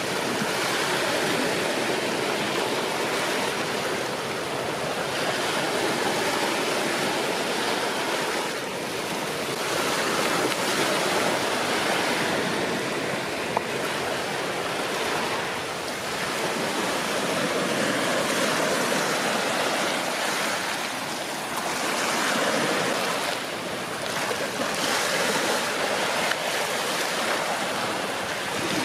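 Shallow surf washing over a rocky shore, a steady wash of water that swells and eases every few seconds. One sharp click about halfway through.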